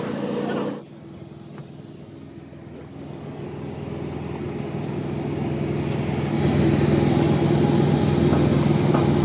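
A motor vehicle engine running with a steady hum. It drops suddenly about a second in, then grows steadily louder over a few seconds and holds.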